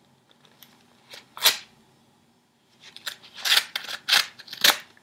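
A letter opener slitting open a paper envelope. There is one short rip about a second and a half in, then a run of four or five quick ripping strokes through the paper over the last two seconds.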